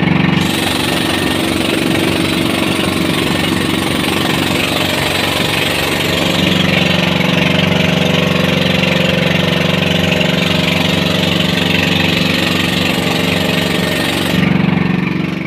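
Outrigger boat's engine running steadily under way, a loud drone with a rushing hiss of wind and water over it.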